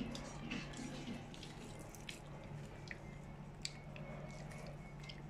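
Fried chicken being pulled apart by hand: soft wet squishing with scattered small crackles and a few sharper clicks.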